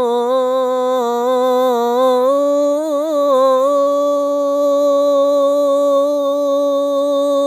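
A male muezzin singing the adhan (Islamic call to prayer) unaccompanied in maqam Jiharkah, drawing out "illā" of "ashhadu an lā ilāha illā Allāh". The melisma is ornamented with wavering turns for the first few seconds, then settles into one long held note.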